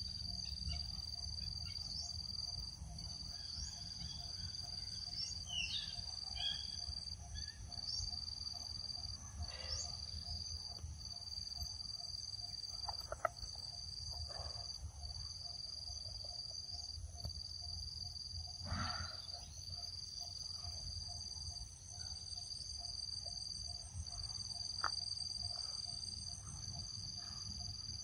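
Chorus of insects trilling: a high steady trill that breaks off briefly every second or two, over further high steady tones. Short bird chirps come in during the first ten seconds, and a low steady rumble runs underneath, with one sharp click about 13 seconds in.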